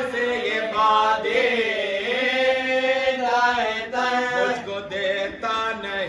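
Unaccompanied male voices chanting a marsiya, a mournful Urdu elegy: a lead reciter at the microphone with other men joining in, in long, drawn-out notes that bend slowly in pitch.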